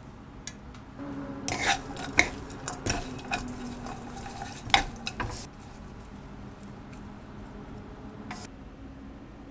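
Soybean sprouts being tossed with seasoning in a wok pan with a wooden spatula: a flurry of clacks and scrapes against the pan for a few seconds. After that the stirring goes quiet, with chopsticks and one more click near the end.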